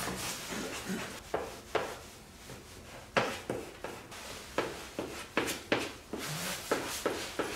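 Hand squeegee rubbed in short, quick strokes over a wet transfer-tape vinyl sticker on an ATV's plastic body panel, pressing out the water and bubbles; the strokes come irregularly, thicker in the second half.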